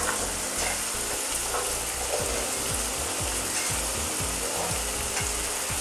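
Vegetables sizzling steadily in hot oil in a frying pan as a handful of julienned carrots is tipped in with sautéed onion and green beans.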